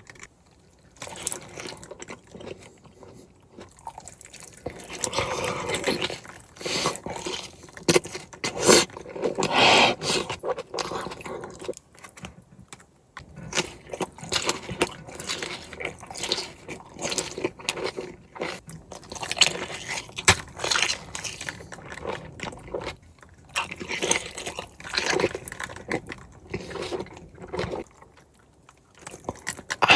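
Close-miked mukbang eating: wet chewing, smacking and crunching of a buttery boiled onion and seafood, in irregular bursts of clicks and squelches.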